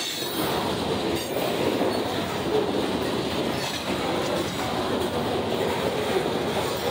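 Freight train of covered hopper cars rolling past close by: a steady rumble and clatter of steel wheels on the rails.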